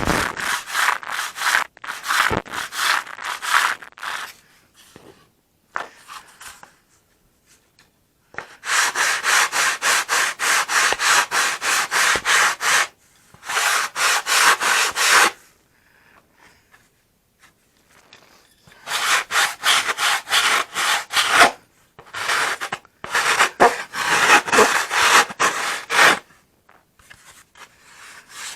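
Hand sanding of a balsa stabiliser trailing edge: quick back-and-forth sandpaper strokes, about four a second, in several runs with short pauses between them, shaping and squaring off the edge.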